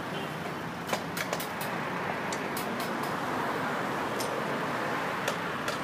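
Steady running of a truck-mounted crane's diesel engine, with scattered sharp clicks and taps on top.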